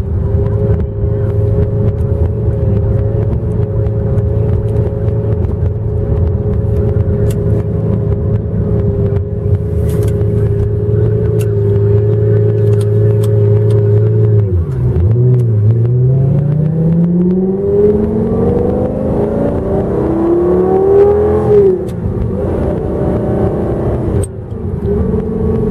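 Heffner twin-turbo Lamborghini Gallardo V10 heard from inside the cabin, droning steadily while cruising. About fifteen seconds in the pitch dips briefly, then climbs steadily for several seconds as the car accelerates, falls away abruptly, and settles back to a steady drone.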